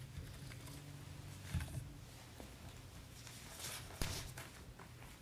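Quiet room tone with a faint steady low hum, broken by a few soft knocks and rustles about one and a half seconds in and again at about four seconds.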